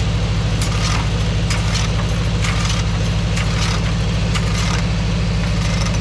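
Sawmill's engine running steadily at an even, low pitch, with short hissy rasps coming and going about once a second.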